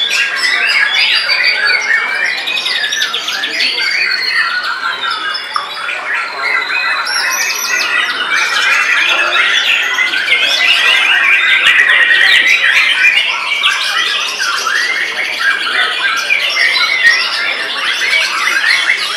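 White-rumped shamas (murai batu) singing at full volume: a dense, unbroken stream of varied whistles, rapid trills and chattering phrases, several birds overlapping.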